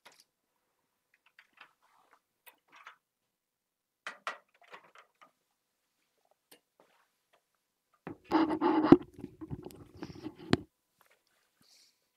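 Handling noise on an open microphone: scattered faint clicks and rustles, then a louder rustling, crackling burst about eight seconds in that lasts some two and a half seconds.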